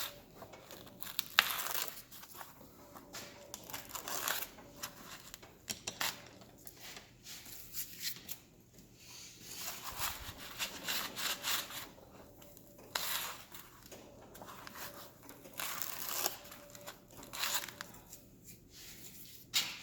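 Kaizen foam being torn and pulled out of a freshly cut tool outline: a string of irregular scratchy rips and rustles.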